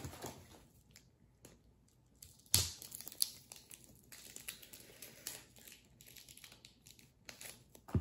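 Plastic packaging crinkling and tearing as it is worked open by hand, with scattered light clicks and one sharp knock about two and a half seconds in.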